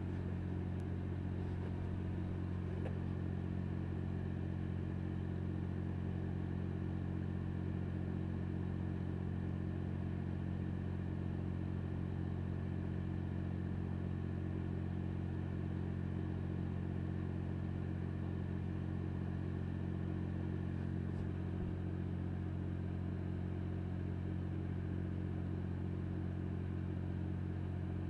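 An engine running steadily at idle: a low, even hum that holds the same pitch throughout.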